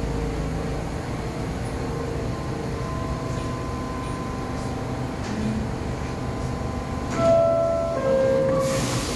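New York City subway train standing at the platform with its doors open, its equipment giving a steady hum. About seven seconds in, the two-note descending door chime sounds, the signal that the doors are about to close, followed by a brief rush of noise near the end.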